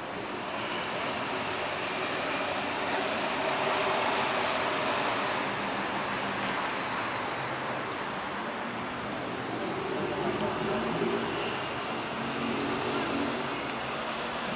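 Scania K420 coach's six-cylinder diesel engine idling at the bay, a steady hiss-laden rumble with a steady high-pitched whine over it.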